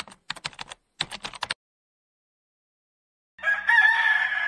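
Rapid keyboard-typing clicks in two quick runs, then silence; about three and a half seconds in, a loud, held call with a slightly wavering pitch begins and is still sounding at the end.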